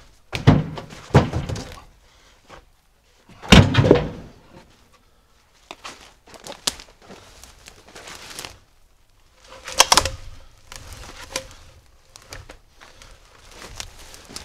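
Sawn rounds of dry log tossed onto a truck's flatbed, landing with heavy thunks every few seconds, the loudest about three and a half seconds in, with shuffling and handling noise between.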